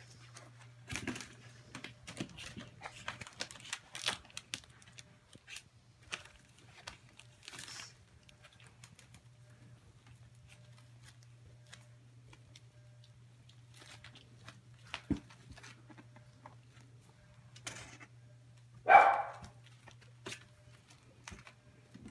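Young puppies scrabbling and rustling on puppy pads, with small scattered clicks, and one short high puppy yelp near the end. A steady low hum runs underneath.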